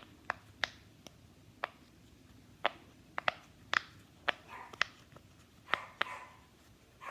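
A series of sharp, separate clicks at uneven intervals, about fifteen in all, with a little soft rustling between them.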